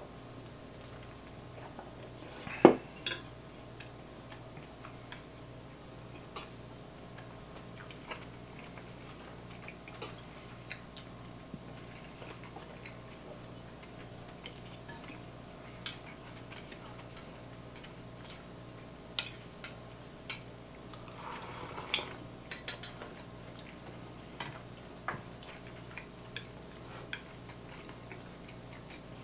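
Chopsticks and a serving spoon clinking against stainless-steel bowls and plates while food is taken, with one sharp clatter a few seconds in and a scatter of lighter clicks later on. A faint regular ticking runs underneath.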